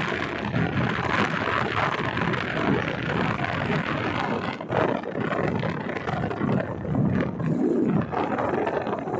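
Wind buffeting the microphone of a vehicle moving along a road, mixed with the vehicle's running noise: an uneven rush with irregular swells.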